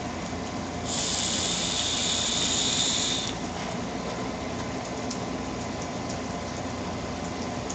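A vape drawn on for about two and a half seconds, starting about a second in: air hissing through a rebuildable dripping atomizer as its coil fires, over a low steady hum.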